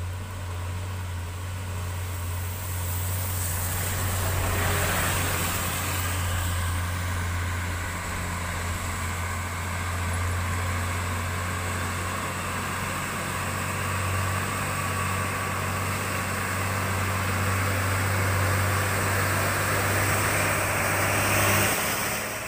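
Diesel engine of a heavily loaded truck pulling slowly uphill with a steady low drone, coming closer and passing loudest near the end, with tyres hissing on the rain-soaked road.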